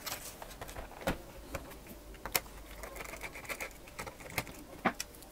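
Scattered light clicks and taps of hands handling a laptop's plastic base and small tools, faint and irregular.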